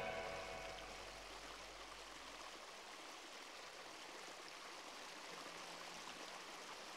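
Faint steady background hiss, with the end of the music fading out in the first second or so.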